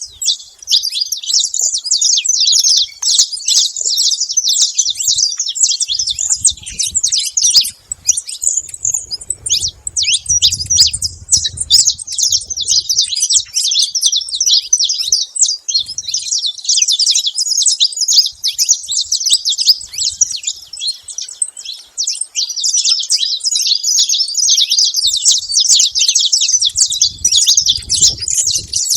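Saffron finch chirping and singing nonstop, a dense, rapid run of high chirps.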